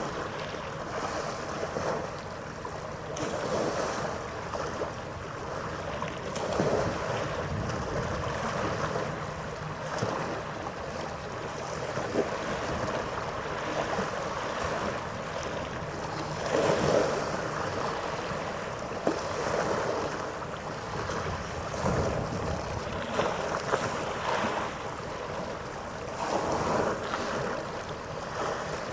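Harbour water sloshing and wind on the microphone, swelling and easing every few seconds, over a faint steady hum.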